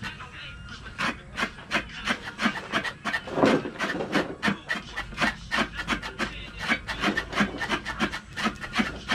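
Rhythmic hand scraping, about three strokes a second: the skin being scraped off a piece of produce for the umu.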